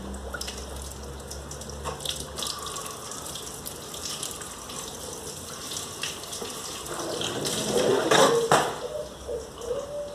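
Liquid running and splashing, with small clicks, as air is bled out of a car's fluid system. The splashing grows louder about eight seconds in.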